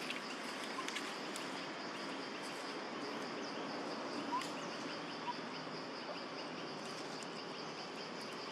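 Outdoor ambience of insects trilling steadily on one high, finely pulsing note, with a few faint ticks and a single brief chirp about four seconds in.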